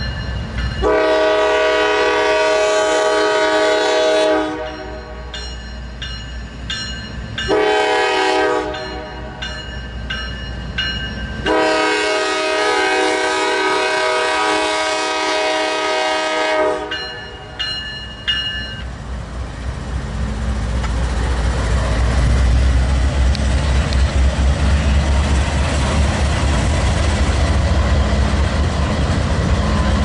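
Nathan K5LA multi-chime air horn on a GE Dash 9 locomotive sounding three blasts, long, short, long, for a grade crossing, with the crossing bell dinging in the gaps. From about twenty seconds in, the horn gives way to the growing low rumble of the diesel locomotives and freight cars passing close by.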